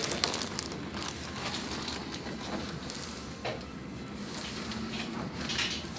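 Faint rustling and a few soft knocks as a patient shifts position on a padded chiropractic treatment table. There is no joint crack.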